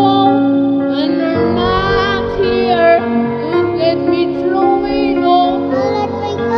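A boy singing a slow pop ballad into a condenser microphone over a karaoke backing track, his melody gliding over steady held chords.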